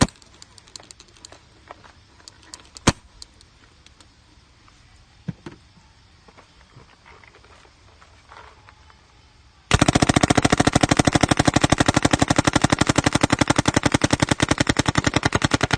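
Paintball marker firing: a single sharp shot about three seconds in, a fainter pop a couple of seconds later, then a long rapid-fire string of evenly spaced shots starting near the end.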